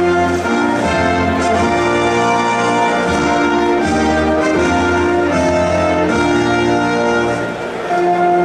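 A national anthem played as an orchestral arrangement with brass, in slow, held chords.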